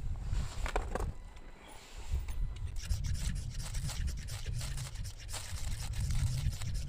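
Rustling and rubbing noise over a steady low rumble, with a short pitched sound about a second in.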